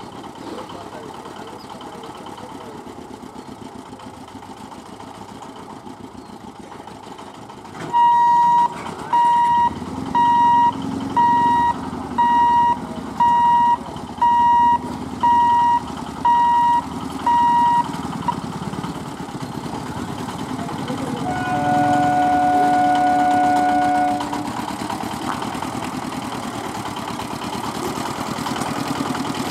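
Level-crossing warning buzzer beeping about ten times, roughly once a second, as the boom barrier lifts, over the running engines of motorcycles crossing the tracks. A vehicle horn sounds once for about two seconds near the end.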